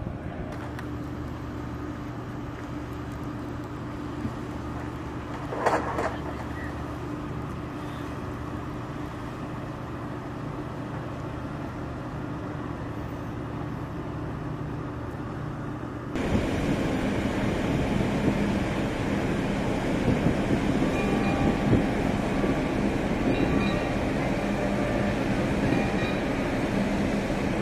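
Steady low drone of ship and boat engines with a few constant hum tones; a bit past halfway it jumps suddenly to a louder, closer machinery hum.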